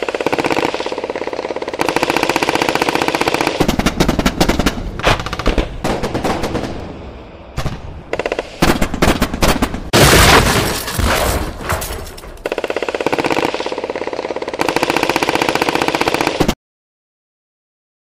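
Rapid electronic machine-gun-style sound effect, rattling fast and evenly with short breaks and a louder, noisier stretch about ten seconds in. It stops suddenly near the end.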